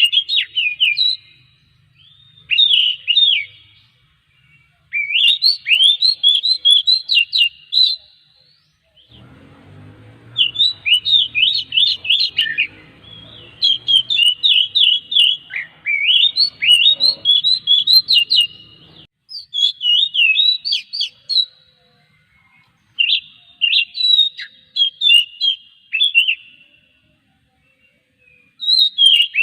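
Oriental magpie-robin (kacer) singing loud phrases of rapid chirps and sliding whistles, each a second to a few seconds long, with short pauses between them. A faint low hum sits under the song for about ten seconds in the middle.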